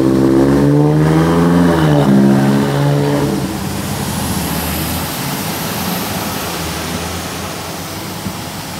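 A road vehicle's engine pulling away, its pitch climbing over the first second and sinking again by about three seconds in as it moves off. After that comes a steady hiss of tyres on the wet road.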